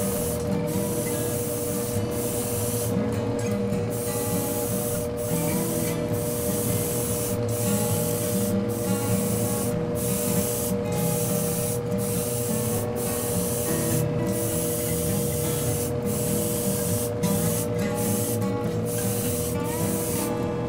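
Gravity-feed airbrush hissing as it sprays acrylic colour over the filled cracks of a porcelain vase, the hiss breaking off briefly about once a second.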